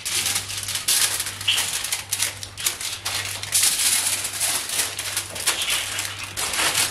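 Aluminium foil crinkling and rustling as it is folded and pressed around a stuffed fish, a fast irregular crackle throughout.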